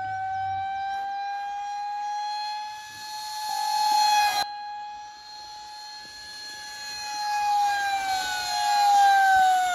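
A 50 mm electric ducted fan model jet whining in flight. It rises in loudness as it passes, cuts off abruptly about four and a half seconds in, then swells again to a second pass, its pitch dropping as it goes by.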